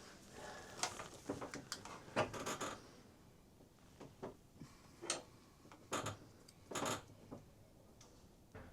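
Hands working a fuel injector's electrical connector loose and handling it: scattered light plastic clicks and rubbing of wiring, busier in the first three seconds, then a few separate clicks.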